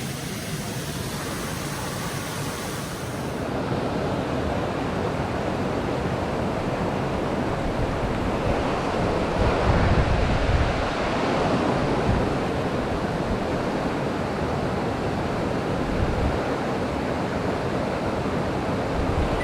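Steady rush of a fast mountain stream's water over rocks, an even, unbroken noise that grows a little louder about three and a half seconds in.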